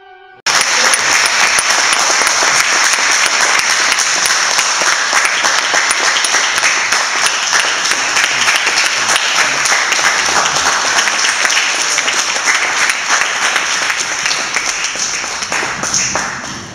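An audience applauding, loud and steady, starting abruptly about half a second in and dying down near the end.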